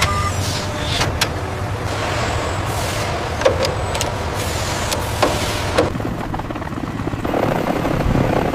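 Factory-floor machinery noise: a steady low hum with scattered sharp metallic clicks and clanks.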